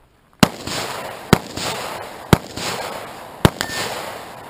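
Four pistol shots about a second apart, each loud crack trailing a long echo.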